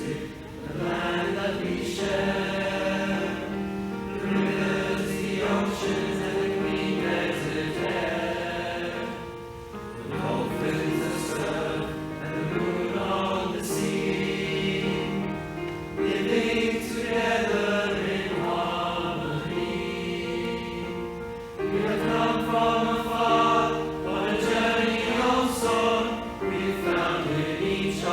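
School choir singing a choral piece in several voice parts, with long held notes and short breaks between phrases about ten seconds in and again about twenty-one seconds in.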